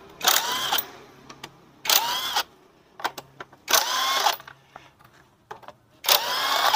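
Handheld electric power tool run in four short bursts, each whining up in pitch as the motor spins up, with small clicks between: loosening the bolts of the scooter's air filter and CVT cover.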